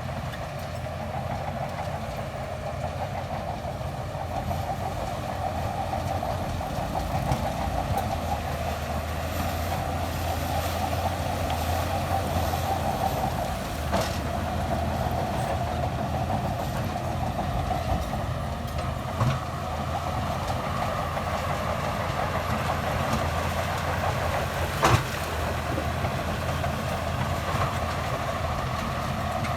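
Bulldozer's diesel engine running steadily under load, with a few sharp metallic clanks, the loudest near the end.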